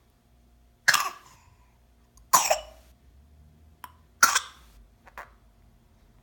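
A baby coughing: three sharp coughs about a second and a half apart, with a couple of smaller coughs in between and near the end.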